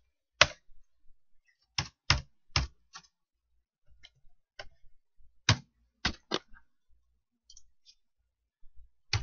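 Computer keyboard keys pressed one at a time: about a dozen separate, irregularly spaced keystrokes, a few coming in quick pairs and runs.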